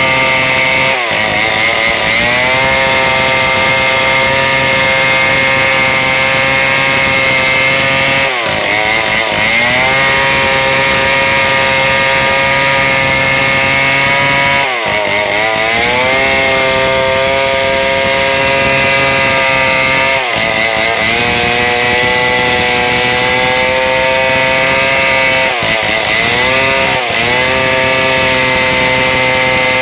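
Two-stroke chainsaw running at full throttle while cutting through a large log. Its engine note is steady, dropping briefly in pitch and climbing back every five or six seconds.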